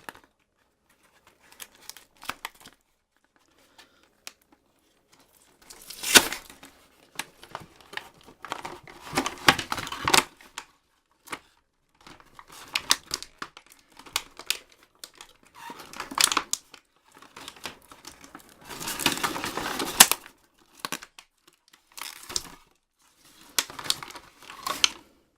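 Toy packaging being unwrapped by hand: tape peeled and torn off, with crinkling and sharp handling clicks in irregular bursts. The longest, loudest tearing comes about three-quarters of the way in.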